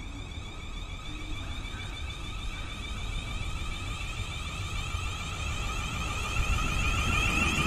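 Siemens Desiro Class 450 electric multiple unit arriving, its traction motors giving a high whine of several steady tones over a low rumble of wheels on rail. The sound grows louder as the train draws up close.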